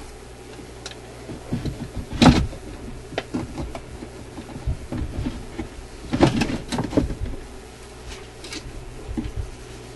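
Irregular clunks, clicks and rattles of small metal parts being handled on an Electrohome 652 suitcase record player's turntable and idler mechanism. The loudest knock comes about two seconds in, with a cluster of knocks around six to seven seconds in.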